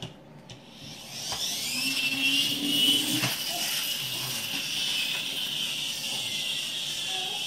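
Small electric motor of a battery-powered Max Tow Truck toy running as it drives along a plastic track. Its high whine starts about a second in, rises in pitch, then holds steady.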